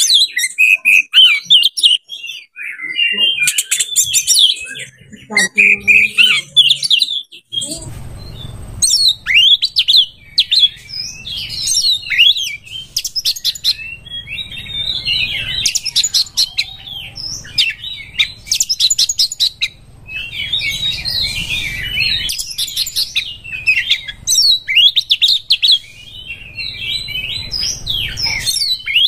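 Oriental magpie-robin (kacer) singing a loud, continuous, varied song of whistles, chirps and rapid rattling trills, the full song of a bird in strong breeding condition. A low background rumble comes in about a quarter of the way through.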